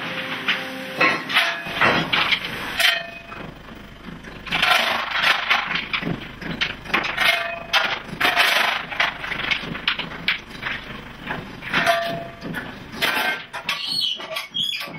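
Stoking a coal-fired steamship boiler: metal tools scraping and clanging in quick, uneven strokes, some leaving a short metallic ring.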